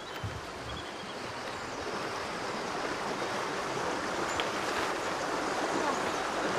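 Steady, even rushing outdoor noise, like running water or wind in foliage, growing slowly a little louder.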